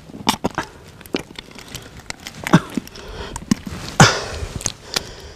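Bare hands digging and scooping in dry, cracked clay soil: irregular scrapes, taps and knocks of crumbling clods, the loudest about four seconds in.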